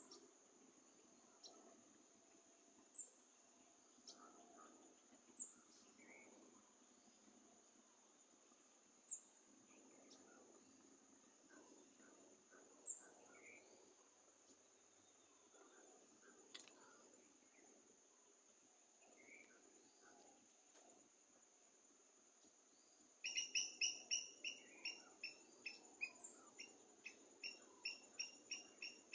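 Forest birds calling over a steady high insect drone: single short, sharp chirps every couple of seconds, then, about three-quarters of the way in, a rapid run of repeated chirps, several a second, that keeps going.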